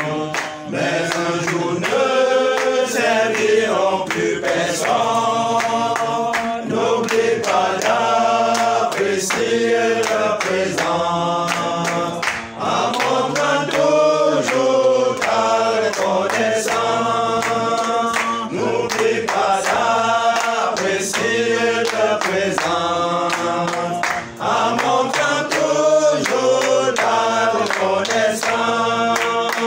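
A group of voices singing a worship song together, with hand claps.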